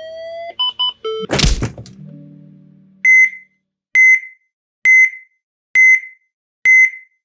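Logo sound effects: a rising electronic sweep that ends about half a second in, a few quick beeps, and a loud thud with a whoosh about a second and a half in. About three seconds in, a single high electronic beep starts repeating a little faster than once a second, like a heart monitor's beep.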